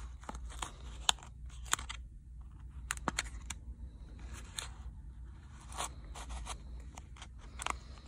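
Plastic opening pick worked along the edge of a Samsung Galaxy A21's back panel, slicing through the adhesive: irregular scraping with scattered clicks and crackles, over a steady low hum.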